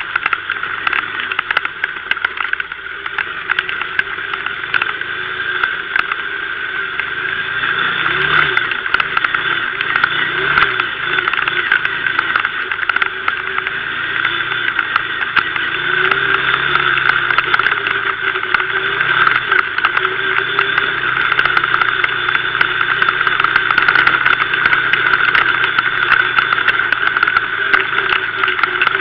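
Kymco MXU 500 quad's engine running, its pitch wavering up and down, under a steady hiss.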